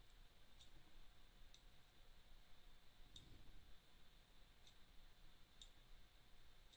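Faint computer mouse button clicks, about six at irregular intervals, over near-silent room tone.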